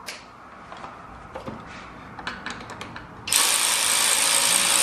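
Cordless electric ratchet running for about two seconds, starting about three seconds in, spinning out a bolt on the engine's oil cooler bracket. A few light clicks come before it.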